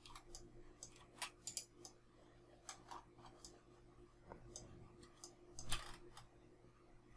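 Scattered faint clicks of a computer mouse and keyboard, irregularly spaced, the loudest about six seconds in, over a faint steady low hum.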